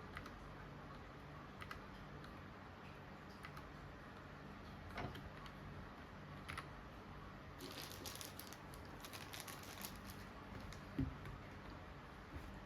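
Keys pressed now and then on a XINMENG C68 low-profile mechanical keyboard with brown switches, giving soft separate clicks. A quick run of keystrokes comes a little past halfway, and a dull thump follows near the end.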